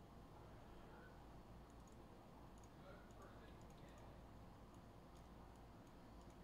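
Near silence: room tone with scattered faint clicks.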